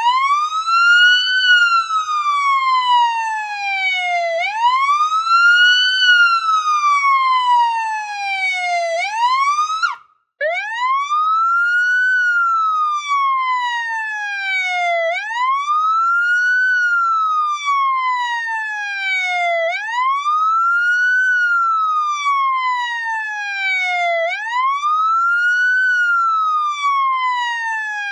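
Police siren in wail mode: each cycle the tone sweeps quickly up, then glides slowly down, repeating about every four and a half seconds. It cuts out briefly about ten seconds in, then starts again with a fresh rise.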